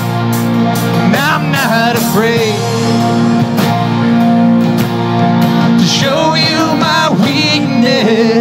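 Live worship band playing: acoustic guitar and bass holding chords over a drum kit, with sung lines about a second in and again from about six seconds.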